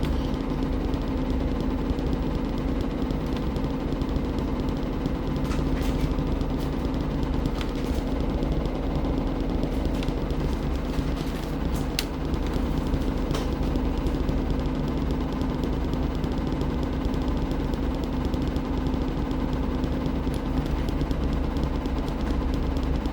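Washing machine running with a steady motor hum and low rumble, with a few sharp clicks now and then.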